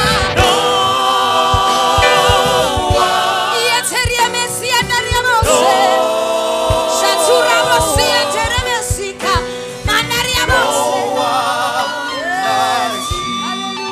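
Gospel-style group singing: several voices holding overlapping, wavering notes, with a few soft low knocks underneath.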